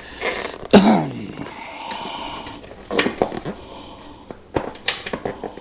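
Hands working a rubber tire and inner tube off a motorcycle wheel rim: scattered rubbing and knocks. A loud short sound drops in pitch about a second in.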